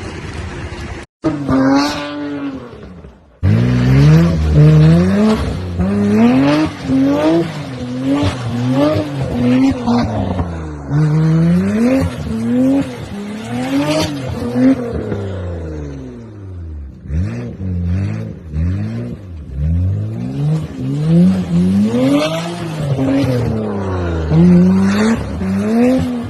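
Nissan GT-R engine revved up and down over and over, about once a second, with tyres squealing at times as in a burnout or drift. Two short clips with abrupt cuts come before it in the first few seconds.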